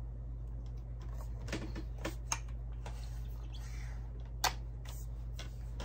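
Diana 48 spring air rifle's side lever being swung out to cock the mainspring, its anti-beartrap ratchet teeth clicking as it travels: a string of irregular clicks, the sharpest about four and a half seconds in, over a low steady hum.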